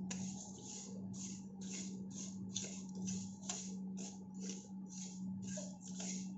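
A steel spoon stirring dry moong dal in a pan as it dry-roasts, the grains rasping and scraping against the metal in quick repeated strokes, about three a second. A steady low hum runs underneath.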